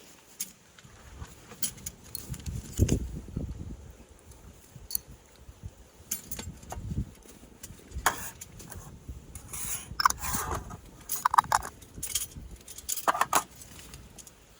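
Metal cutlery and camp utensils clinking and rattling as they are handled and packed, in a scatter of irregular clicks with a few brief ringing clinks.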